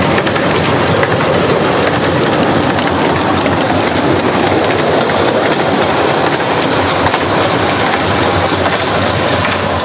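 A narrow-gauge steam train passing close by: a steady loud rush of noise with the clatter of its wheels on the rails.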